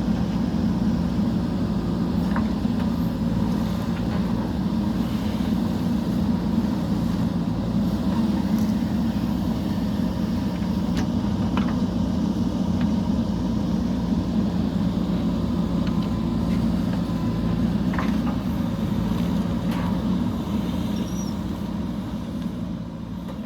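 JCB backhoe loader's diesel engine running steadily, with a few faint clicks over it.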